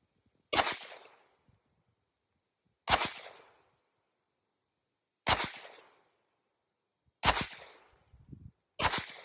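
Five gunshots fired one at a time, roughly two seconds apart, each a sharp crack with a short echoing tail.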